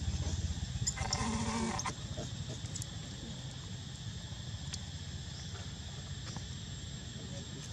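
A macaque's short bleat-like call about a second in, lasting under a second, over a steady low rumble that eases after about two seconds.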